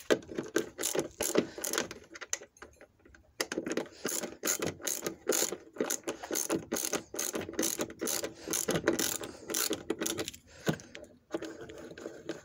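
Ratcheting screwdriver clicking in quick strokes as it backs out a tail light mounting bolt, with short pauses about two seconds in and again near the end.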